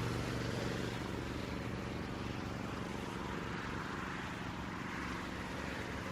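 Traffic on a wet city street: the low hum of a passing vehicle fades away over the first couple of seconds, over a steady hiss of tyres on wet road.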